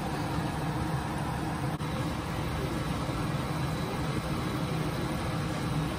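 Steady low rumble of a stovetop running on high heat, with a wok of chicken curry boiling.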